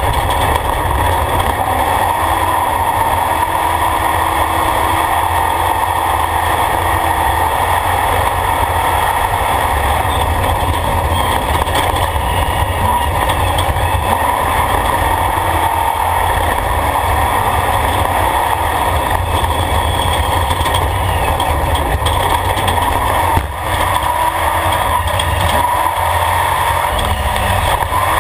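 Engine and dirt-road noise inside the cab of an off-road race truck under way, a loud steady rumble with the engine note rising and falling as it revs. The noise briefly dips about 23 seconds in.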